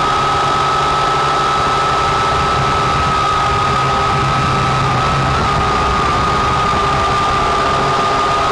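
Syma X8C quadcopter's motors and propellers whining steadily as it hovers, heard from the camera mounted on the drone. The pitch wavers slightly a few times as the throttle is adjusted.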